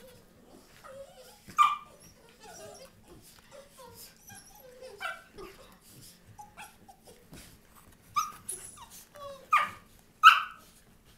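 Young dogs yipping and whining while play-fighting. A sharp yip comes about a second and a half in, and a quick run of louder yips comes near the end.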